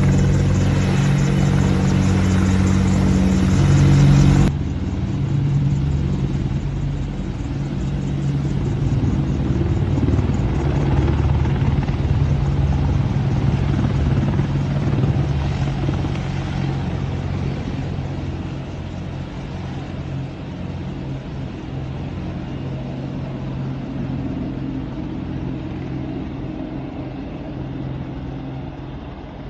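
A formation of four AH-64 Apache helicopters, their rotors and twin turboshaft engines running steadily as they lift off and fly away. The sound drops abruptly about four seconds in, then fades steadily over the last ten seconds as they climb out.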